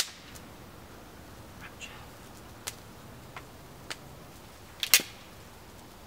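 Newly lit campfire of kindling and fatwood crackling: scattered sharp pops, a loud one at the start and a loud double pop about five seconds in.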